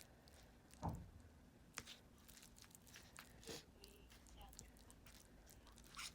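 A person eating, faintly: quiet chewing and biting with scattered sharp clicks, and a single dull thump about a second in.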